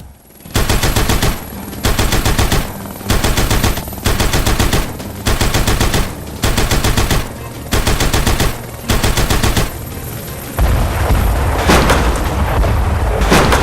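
About eight bursts of rapid, repeated bangs in the manner of machine-gun fire, each about a second long with short gaps between. A longer, louder stretch of the same kind follows about ten seconds in.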